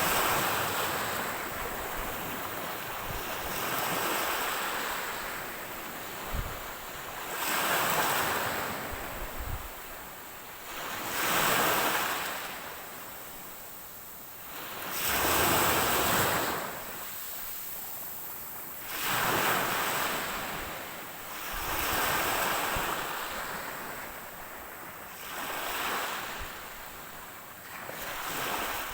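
Ocean waves breaking and washing in one after another, a surge of hiss rising and falling away about every three to four seconds.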